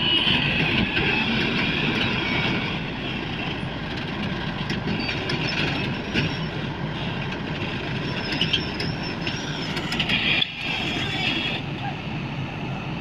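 Heavy diesel construction machinery running steadily, with high metallic squeals and clicks over the engine noise.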